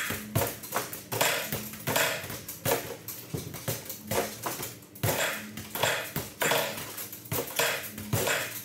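Small rubber basketballs striking the backboard, rims and frame of a home arcade basketball game in a rapid, uneven series of knocks and thuds, several a second, as shots are fired in quick succession.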